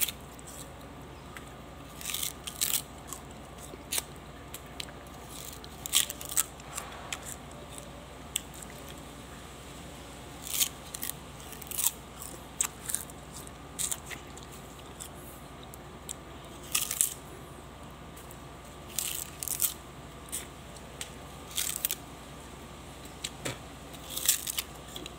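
Raw sugarcane stalk being bitten, torn and chewed: short crisp crunching and cracking sounds in irregular clusters, every second or two, with pauses between.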